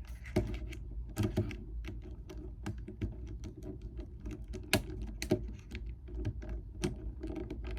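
Irregular small plastic clicks and taps from handling a GAN 11 M Pro speed cube's pieces and center cap.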